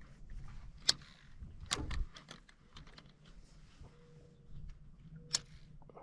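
A series of irregular clicks and taps, with a few sharp louder clicks, about a second in, near two seconds and late on, over a low rumble.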